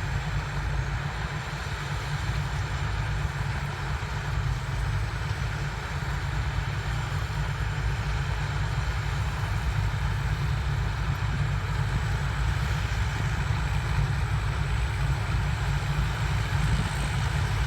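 Turbocharged diesel engine of a rice combine harvester running steadily, a deep rumble with the mechanical noise of the machine over it and a thin, steady high whistle.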